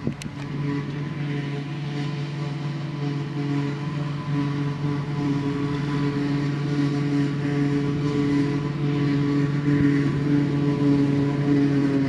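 Claas Jaguar 940 self-propelled forage harvester chopping grass at working speed, with the tractor hauling the trailer alongside: a steady, even engine-and-machinery drone that grows a little louder as the machines come closer.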